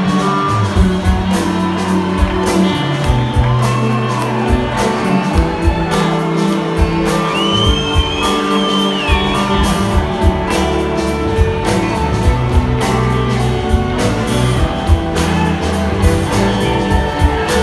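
Live band music from a full ensemble playing on stage in a large hall, with a steady drum beat under guitar and other instruments. A high sliding tone rises over the band about eight seconds in.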